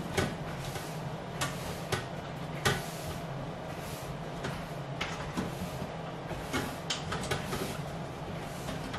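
Irregular knocks and clicks of things being handled at a kitchen bench, about a dozen of them spread unevenly, over a steady low hum.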